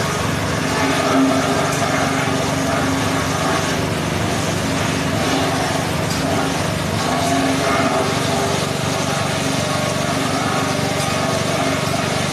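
Small engine driving a forage chopper at a steady speed while cassava stems are fed in: an even engine drone with the noisy rattle of the blades chopping the stalks.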